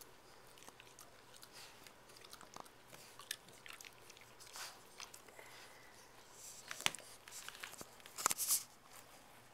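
Boston terrier chewing and ripping at a plush stuffed toy: scattered short scratchy snaps and rustles, the loudest a cluster a little before the end.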